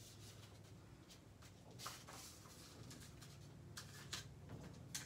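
Faint handling of paper and cardstock on a table: soft rustles and a few light taps, one about two seconds in and a few near the end, over a low room hum.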